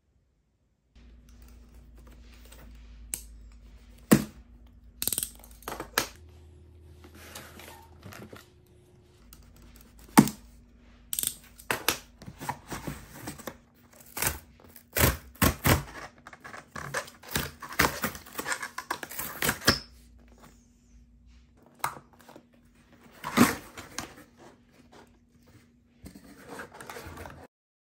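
Cardboard shipping box being opened by hand: tearing, scraping and rustling of cardboard, broken by a string of sharp taps and knocks, the loudest about four and ten seconds in.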